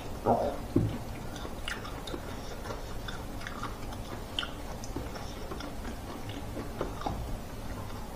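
Close-up chewing of grilled smoked pork: a couple of louder bites and tears in the first second, then steady mouth sounds with many small wet clicks and smacks.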